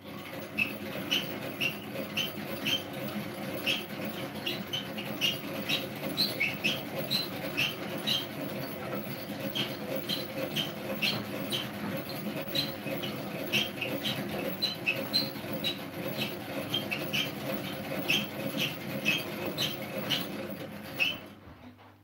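Hand-cranked rotary egg beater turning in pancake batter: a steady gear whir with a squeak repeating a few times a second, stopping about a second before the end.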